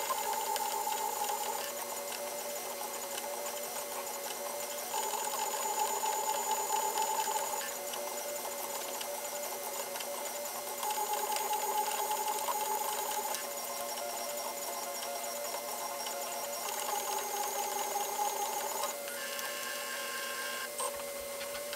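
M3D Micro 3D printer's stepper motors whining through a print, in steady tones that switch pitch every two to three seconds, over a constant low hum.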